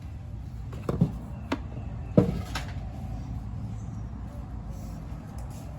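A few short knocks and clicks of parts or tools being handled, the loudest a little over two seconds in, over a steady low rumble.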